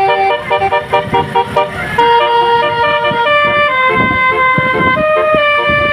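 Basuri telolet horn, a multi-trumpet bus horn, playing a melody with several tones sounding together. It starts with a run of short, quick notes, then from about two seconds in moves to longer held chords that step to a new pitch about once a second.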